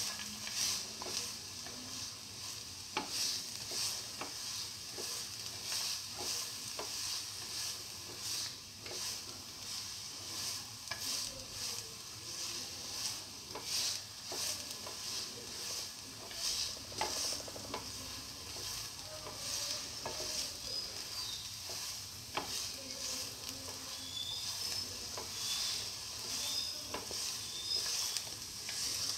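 Sliced onions sizzling in hot oil in a frying pan, with a steady hiss, while a spatula stirs them and scrapes and taps against the pan now and then.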